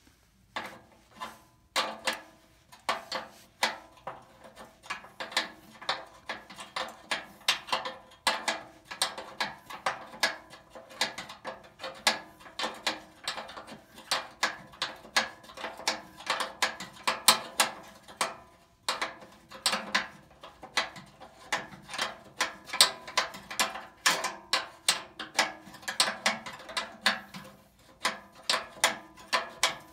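A hand tool working metal at the hub and shaft of a furnace blower's squirrel-cage wheel: a run of sharp metallic clicks, about two a second, with a few short pauses.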